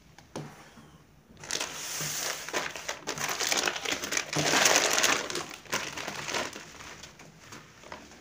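Plastic balloon packet crinkling and rustling as it is handled and uninflated latex balloons are shaken out of it, starting after a short quiet spell, loudest about halfway through, then tapering off.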